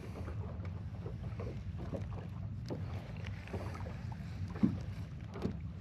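Ambience aboard a small fishing boat: a steady low hum with some wind on the microphone, faint irregular ticks, and one sharp knock about four and a half seconds in.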